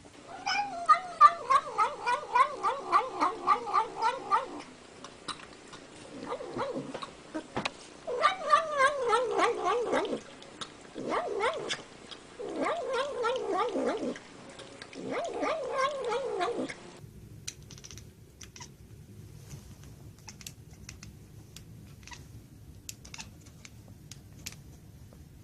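A domestic cat vocalising: first a rapid string of short, pitched chirping calls, a few a second, then a series of long, wavering yowls. About two-thirds of the way through the sound cuts off, leaving only faint scattered clicks over a low hum.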